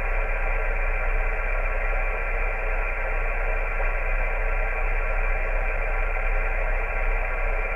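Mobile HF ham radio receiver hissing steadily with static from its speaker as it is tuned, with no station coming through: the band is dead.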